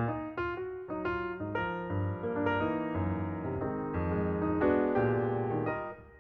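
Background music: an electric piano playing chords over a bass line, fading out near the end.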